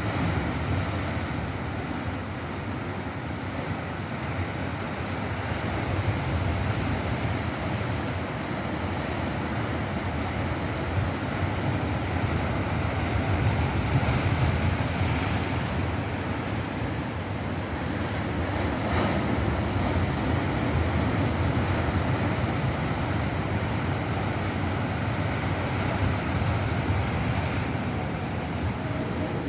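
Ocean surf breaking and washing ashore in a continuous roar that swells and eases slowly, with wind rumbling on the microphone.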